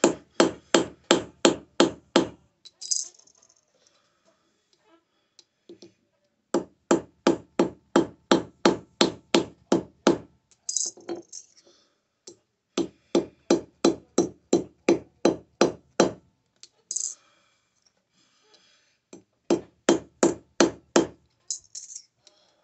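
Hammer blows forging a sterling silver bar square, about four strikes a second, in four runs of two to four seconds separated by short pauses.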